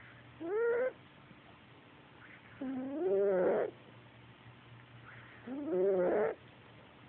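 A cat snoring: three pitched, whining snores about two and a half seconds apart, each rising in pitch at its start, the middle one the longest.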